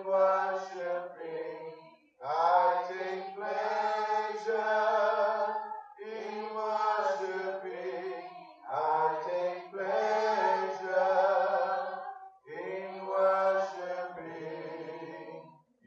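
Unaccompanied worship singing: a voice amplified through the hall's microphones sings slow, drawn-out phrases of about two seconds each, with short breaths between them.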